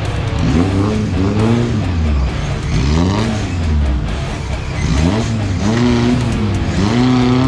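Off-road 4x4 racing rig's engine revving hard again and again, its pitch climbing and dropping about once a second, as it churns through deep mud.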